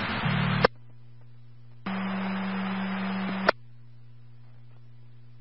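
Police radio scanner: a transmission's static hiss cuts off with a squelch click less than a second in, leaving a low hum. About two seconds in a radio keys up with no voice, about a second and a half of hiss and a steady low tone, and it ends in another click.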